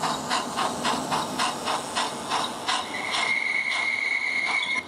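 Digital sound of a model steam locomotive running: evenly spaced exhaust chuffs, about three a second, then a steady steam whistle from about three seconds in that cuts off suddenly near the end.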